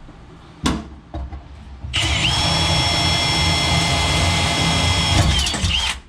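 Power drill spinning up, running at a steady high whine for about four seconds, then winding down. A couple of knocks come before it.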